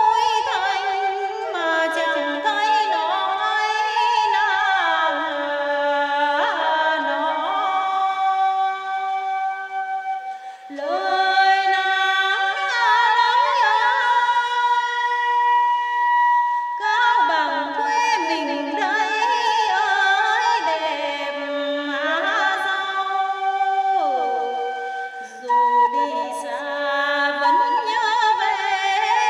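A woman singing a Tày–Nùng lượn folk song, its melody wavering and sliding between long held notes. The singing breaks off briefly about ten seconds in and again near the end.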